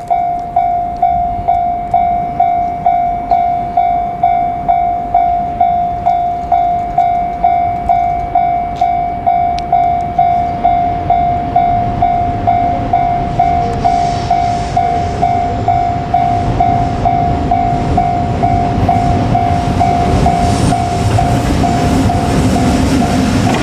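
Railway level-crossing warning bell ringing a steady repeated ding, just under two strikes a second. From about halfway the rumble and clatter of a JR Freight train hauled by an EF81 electric locomotive grow until they are the loudest sound near the end.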